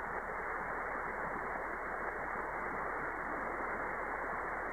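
Steady static hiss from a shortwave receiver on the 15-metre band in single-sideband mode, with no station readable through it; the hiss stops sharply above about 2.5 kHz at the receiver's filter, and a faint low hum runs underneath.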